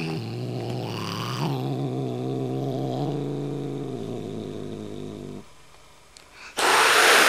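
Domestic cat growling a long, low warning growl with a slight waver, which stops after about five seconds. A short, loud hiss follows near the end.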